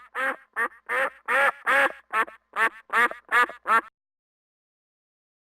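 Duck quacking: a quick run of about ten quacks, roughly three a second, that stops about four seconds in.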